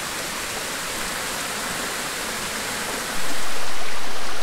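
Shallow stream water running in a thin sheet over a granite outcrop, a steady rushing hiss. About three seconds in, a louder steady rushing noise cuts in suddenly.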